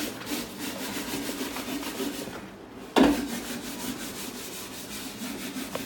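Hands tossing and rubbing raw potato pieces with oil and spices, a steady rubbing and scraping, with one sudden loud clatter about three seconds in.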